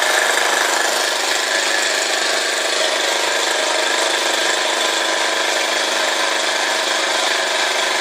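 Doll toy steam engine running fast and steady, its flywheel and belt drive turning a Bing toy fountain's pump: a continuous, even mechanical whir with no change in speed.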